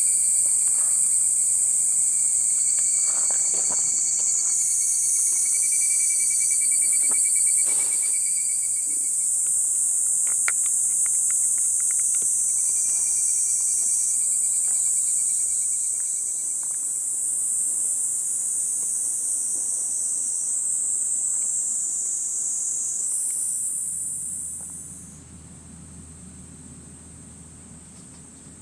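Chorus of insects trilling steadily at a high pitch, with a few faint clicks. About 25 s in it drops to a much fainter level and a low hum comes in.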